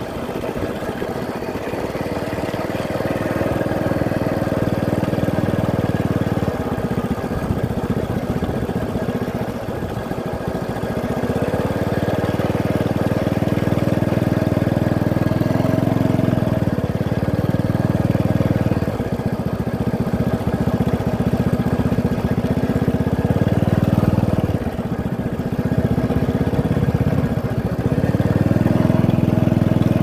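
Motorcycle engine running on a ride, with stretches where it gets louder and eases off again every few seconds.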